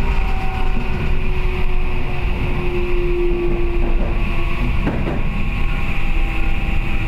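Toei Type 5500 subway train running, heard on board: a steady rumble of the wheels on the rails under a steady hum. There is a brief knock about five seconds in.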